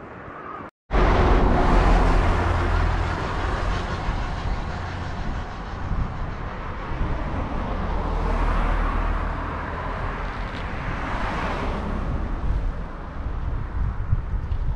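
Road traffic, starting abruptly about a second in, with a steady low rumble and vehicles swelling past twice, around eight and eleven seconds in.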